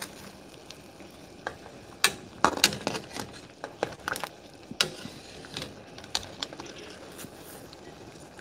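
Metal tongs clinking and scraping against a stainless steel saucepan while fishing a boiled blue crab out of bubbling water, several sharp clinks mostly in the middle, over the steady bubbling of the boiling water.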